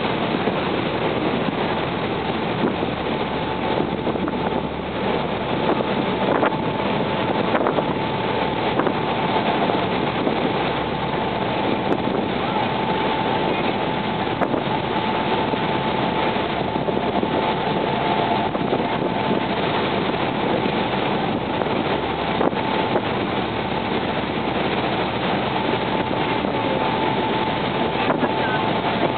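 Boat under way on open water: its motor runs steadily with a constant whine, mixed with rushing water and wind noise.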